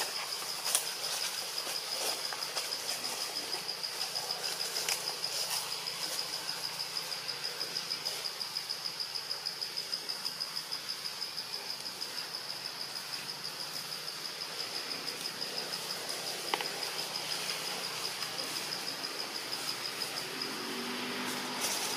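Steady, high-pitched insect chorus with a rapid, even pulse, with a few sharp ticks over it.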